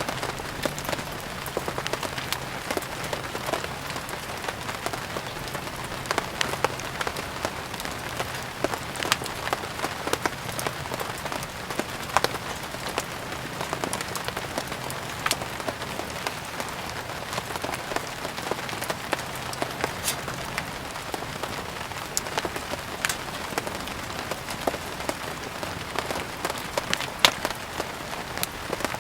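Steady rain mixed with a wood fire burning: an even rain hiss with frequent irregular sharp crackles and pops.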